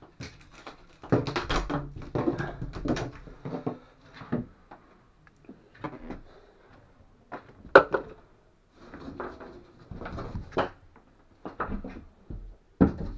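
Irregular bumps, knocks and rustling as tools and materials are handled, with a sharp knock about eight seconds in and another near the end.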